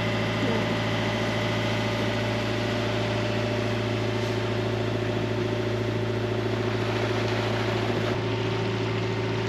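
A sailboat's engine running steadily as the boat motors along.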